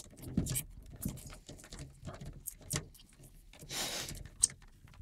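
Piglets scuffling about on straw bedding: an irregular patter of small hooves and light clicks, with a longer rustle of straw just before four seconds in.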